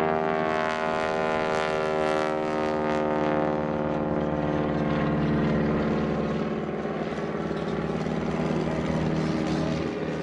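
Piston engines of two light propeller aircraft, a de Havilland Beaver and an Auster, droning steadily as they fly past in formation. The pitch sinks slightly early on, and the sound fades a little near the end.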